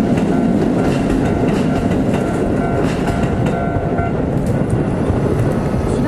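Electric commuter train passing over a level crossing, its wheels clattering over the rail joints. The crossing's warning bell rings in a steady repeating pattern and stops about four seconds in, as the crossing clears.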